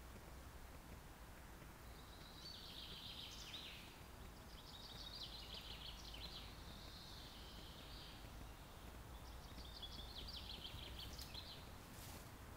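A songbird singing, four phrases of rapid high notes a second or two long with short gaps between, over a faint steady low rumble.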